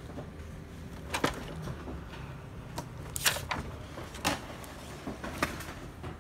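HP Color LaserJet Pro M479 powering up: several sharp mechanical clicks and clunks from the printer's mechanism over a low steady hum.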